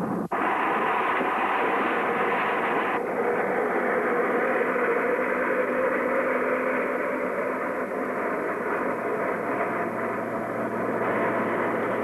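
Four-engined C-130 Hercules turboprops running at high power, a steady, loud engine and propeller noise with a faint steady whine, cutting in abruptly at the start. The aircraft is ski-equipped and moving across snow.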